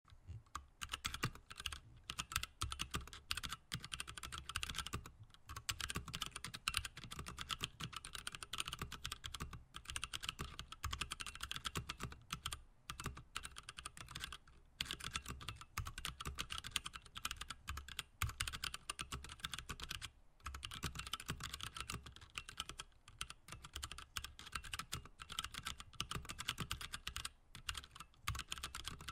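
Typing on a Whitefox mechanical keyboard with unlubed Gateron Brown tactile switches and DSA keycaps: fast, continuous key clacks, broken by a few brief pauses.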